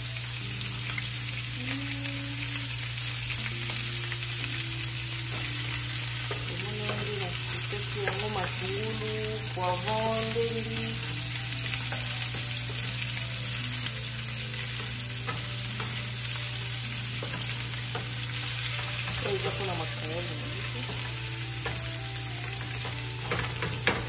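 Sliced onion and green bell pepper sizzling steadily as they fry in a nonstick frying pan, stirred with a wooden spatula.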